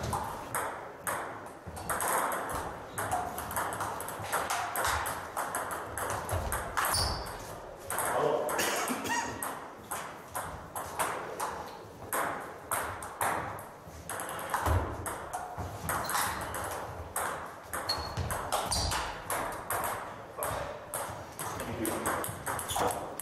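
Table tennis rallies: the ball clicking off bats and tables in quick runs of sharp ticks, from more than one table at once, with short pauses between points.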